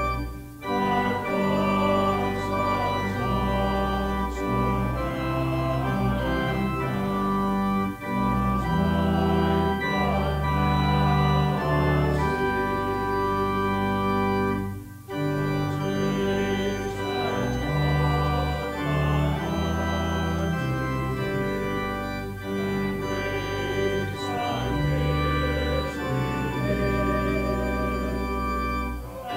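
Church organ playing slow, sustained chords over deep held bass notes, pausing briefly about 8 and 15 seconds in.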